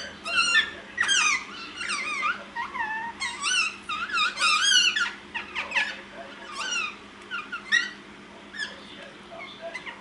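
Indian ringneck parakeets chattering to each other: a busy run of short chirps that rise and fall, thinning out about halfway through to scattered short calls.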